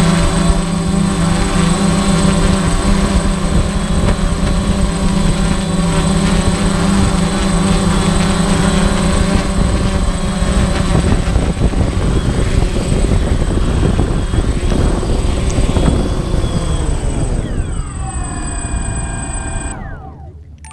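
Quadcopter drone's motors and propellers giving a steady multi-toned buzz, then winding down in pitch over the last few seconds as the motors spin down and stop.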